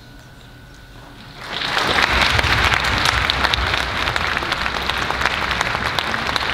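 Audience applause breaks out about a second and a half in, after a faint lingering tone from the orchestra's last note, and carries on as dense, steady clapping.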